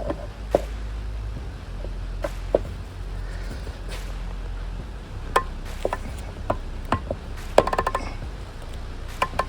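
Scattered plastic clicks and knocks as a screwdriver is pressed in and turned in a Freightliner Cascadia hood mirror's plastic housing to unlock its center part, with a quick run of clicks about eight seconds in. A steady low hum runs underneath.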